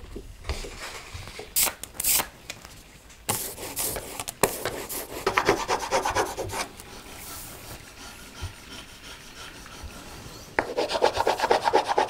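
Stiff printing paper crackling as a woodcut print is peeled off the inked block. Then a hand rubs the back of a sheet laid over the block, a run of rhythmic scratchy rubbing strokes that turn faster and louder near the end.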